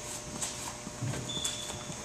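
Sneakered footsteps stepping up onto a portable pitching mound: a few light knocks and taps, with a brief squeak, over a steady hum.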